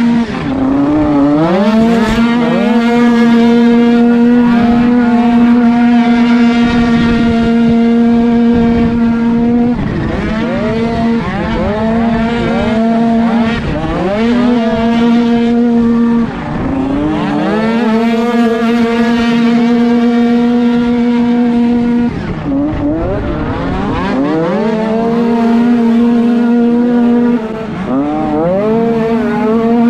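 49cc two-stroke dirt bike engine racing at high revs, holding a steady high pitch, with the revs dropping and climbing back up again several times through the gears.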